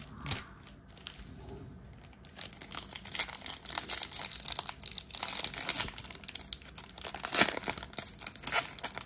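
Plastic wrapping crinkling and tearing by hand as a retail blaster box of baseball cards is opened. Fairly quiet for the first two seconds, then steady dense crackling, with one sharp loud crinkle about seven seconds in.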